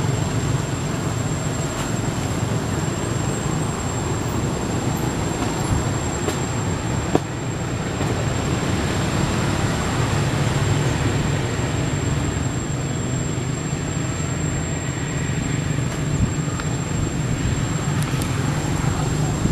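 Steady low rumble of road traffic, with a faint high steady whine throughout and a single click about seven seconds in.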